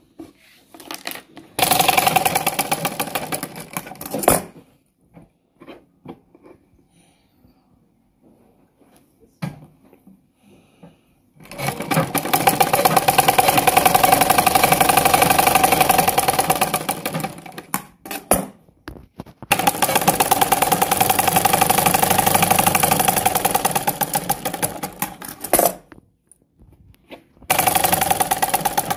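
Domestic sewing machine stitching in runs of rapid, even strokes: a short run of about three seconds, then two longer runs of about six seconds each, and another starting near the end. Quiet rustles and clicks fill the pauses between runs.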